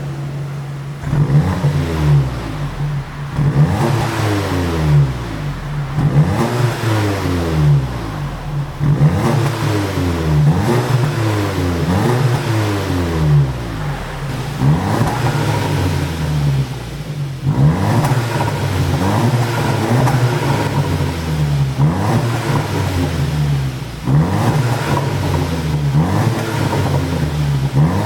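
2016 Audi TT 45 TFSI's turbocharged 2.0-litre four-cylinder engine revved again and again in short blips, the pitch rising and falling each time. Its engine tune is set to make the exhaust pop on the overrun as the revs drop.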